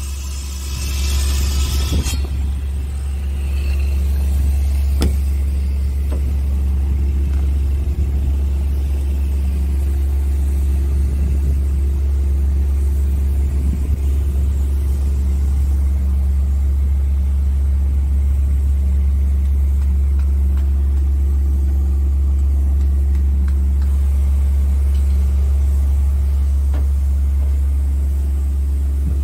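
Scania R tractor unit's diesel engine idling, a steady deep rumble with no change in speed. A hiss runs over the first two seconds, then stops.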